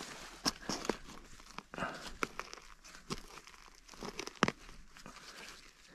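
Dry pine needles and leaf litter crackling and rustling as a hand digging tool is worked into the forest floor to dig out a pine mushroom, with a run of sharp snaps, the loudest about four and a half seconds in.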